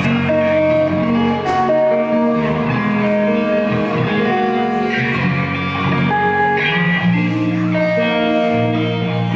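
Electric guitar playing riffs during a sound check, with several notes held and sustained.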